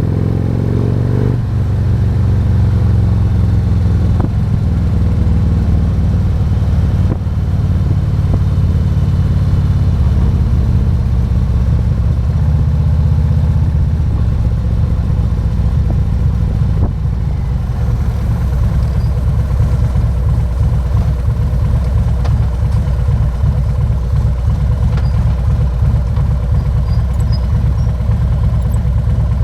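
Harley-Davidson Road King's 117-cubic-inch V-twin engine running on the road, its pitch dropping about a second in and then holding steady. In the last third it runs at lower revs with a choppier, uneven beat.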